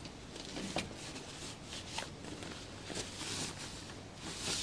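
Handling noise from a bike trailer's nylon cover being fastened to its frame: fabric rustling with a few sharp clicks, and a louder rustle near the end.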